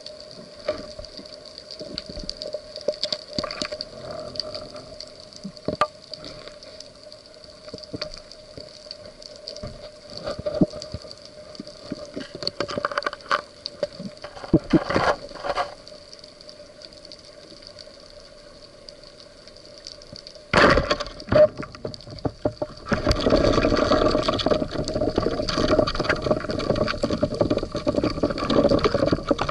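Underwater ambience on a rocky reef, recorded through an action-camera housing: scattered sharp clicks and crackles over a faint steady hum. Past two-thirds of the way through comes a short loud burst, then a loud continuous rush of moving water as the breath-hold diver moves toward the surface.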